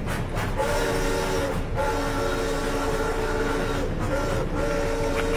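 Train whistle sounding a chord of several notes held together, in long blasts broken briefly about two seconds in and again about four seconds in, with a short blast between.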